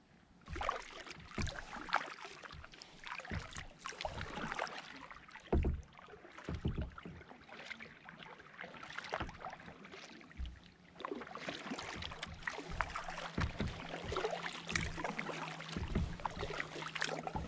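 Kayak paddling: the paddle blades dip and splash in the water in uneven strokes, with drips and small splashes between them.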